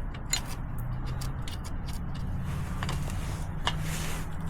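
Wrench work on a dirt bike's chain adjuster: scattered metal clicks and creaks as the adjuster bolt is loosened, over a low steady hum.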